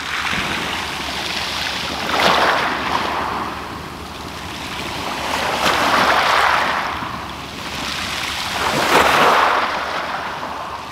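Small waves breaking and washing up a shingle beach, swelling and easing three times, about three seconds apart.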